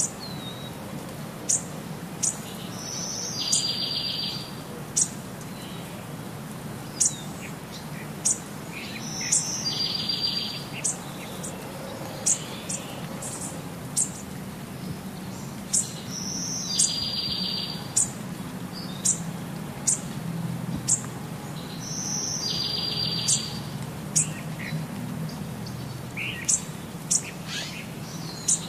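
Birds chirping: many short, sharp high chirps, with a short buzzy trill that recurs about every six and a half seconds, over a low steady hum.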